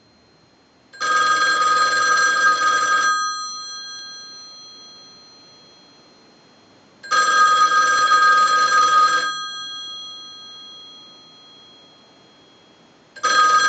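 Single slot payphone's ringer bells ringing on a ring cycle sent to the line, as for an incoming call: about two seconds of ringing, then a pause of about four seconds while the bells fade, repeated, with a third ring starting near the end. The phone is ringing in correctly.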